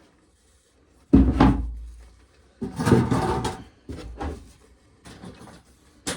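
A loud, deep thump about a second in, then rustling and scraping and a few lighter knocks: an emptied plastic tub and pail being handled and set back in place for shelling corn.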